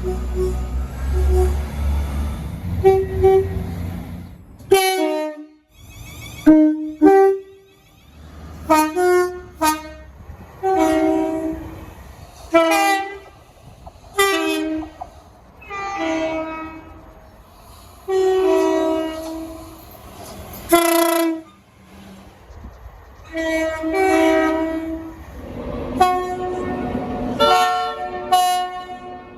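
Train horns sounding a long series of short and longer chord blasts, several notes at once, broken by abrupt cuts between clips. A low locomotive rumble runs under the first few seconds.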